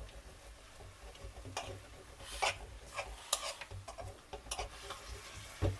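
Metal spoon stirring and scraping beef mince around a steel karahi, a few short scrapes at irregular intervals, while the mince is being bhuna-fried with ginger-garlic.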